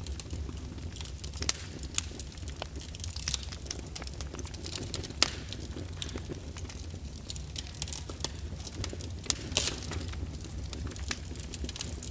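Fire burning in a fireplace, crackling with frequent sharp pops over a steady low rumble. The loudest pops come about a second and a half, five, and nine and a half seconds in.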